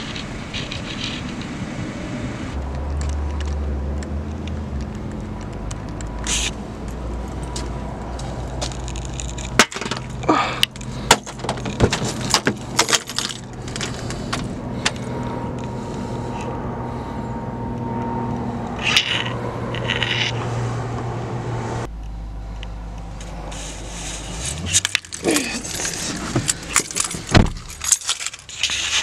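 Car door being opened and someone climbing into the driver's seat, with sharp clicks, knocks and jangling keys over a steady low hum.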